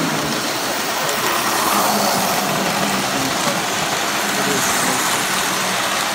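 Three-rail O-gauge model trains running on metal track close by, a steady rolling rumble of wheels and cars passing.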